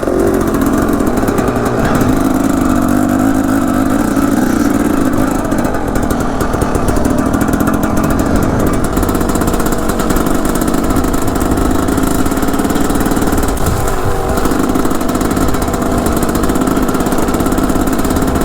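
Dirt bike engine running steadily and loudly, with a brief drop in engine pitch about 14 seconds in.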